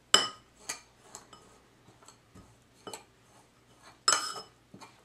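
Metal spoon stirring a dry mix of ground flax seeds, Parmesan and baking powder in a bowl, knocking against the bowl in irregular clinks. The loudest ringing clinks come right at the start and about four seconds in.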